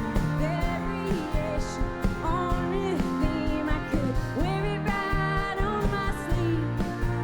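Live indie-country band playing: a woman singing a melody over guitars, bass and drums, heard through a crowd-recorded concert sound system.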